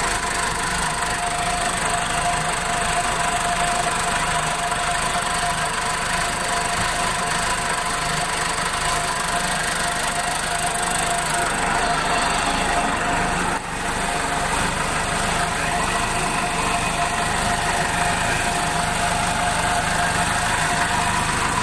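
Freshly overhauled engine of a J.I. Case 480 backhoe loader running steadily.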